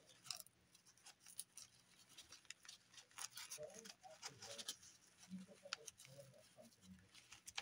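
Faint handling sounds of fingers on paper: scattered small ticks and light rustles as a piece is tucked and pressed into a journal page.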